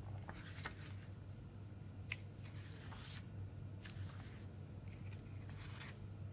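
Paper rustling as hands turn and press flat the pages of a CD booklet: soft scattered rustles and small clicks, over a steady low hum.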